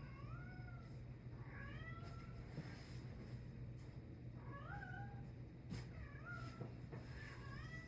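A cat meowing repeatedly: about five short calls, each rising then falling in pitch, one to three seconds apart, over a faint steady low hum.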